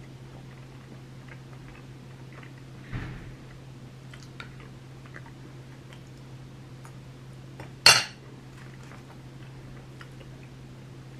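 A metal fork set down on a ceramic plate with one sharp clink, the loudest sound. Before it come a soft thump and faint clicks of cutlery and eating, over a steady low hum.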